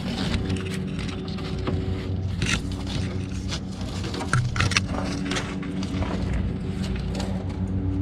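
A steady engine hum, with scattered small clicks and scrapes of wiring and plastic clips being handled.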